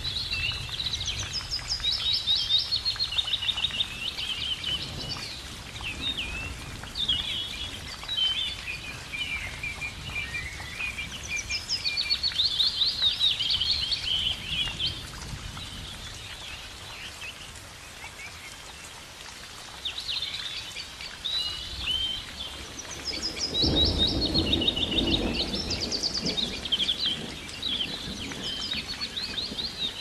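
Songbirds singing: many quick, repeated chirping and trilled phrases, overlapping, over a steady hiss. A low rushing noise swells for a few seconds about three-quarters of the way through.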